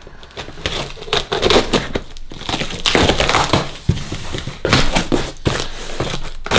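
Scissors cutting through packing tape on a cardboard box, with the cardboard flaps crinkling and scraping as they are pulled open: a run of irregular rasping strokes.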